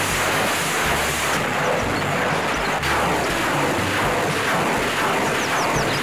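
A truck-mounted BM-21 Grad multiple rocket launcher firing a salvo: rockets leaving the tubes in quick succession, merging into one continuous, loud rushing noise.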